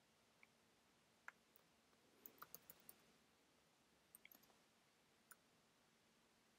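Faint clicks of a computer keyboard being typed on: a couple of single keystrokes, then a quick run of several about two seconds in, another short run about four seconds in, and one last click near the end.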